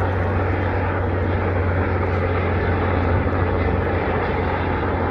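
Helicopter in flight, its rotors and engines making a loud, steady drone.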